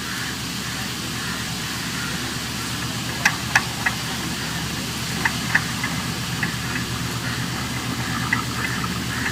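Diesel-electric locomotive engine idling with a steady low rumble, heard from the trackside. A few short, sharp high clicks come over it, in a cluster a little past three seconds, again at about five and a half seconds, and faintly near the end.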